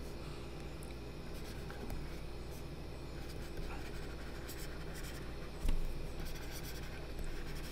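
Stylus scratching over a tablet surface in short handwriting strokes, over a faint steady low hum; a soft knock about three-quarters of the way through.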